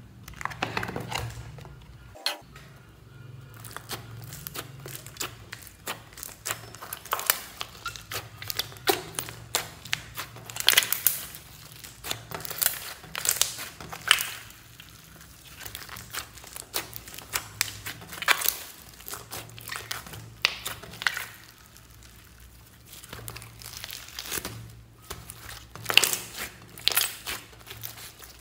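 Hands kneading and squeezing a large lump of mixed slime, giving irregular sharp clicking and popping sounds as air pockets in the slime are pressed out.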